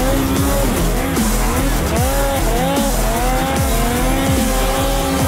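Turbocharged Lynx snowmobile engines revving up and down again and again, the pitch rising and falling with each throttle blip, over background music with a bass beat.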